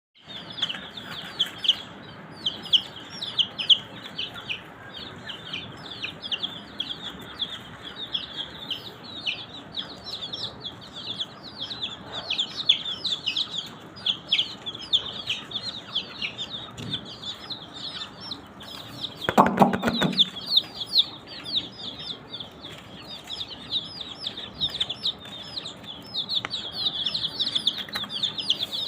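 A group of baby chicks peeping continuously, many rapid, high, falling chirps overlapping. About two-thirds of the way through, a short louder noise lasting about a second cuts across the chirping.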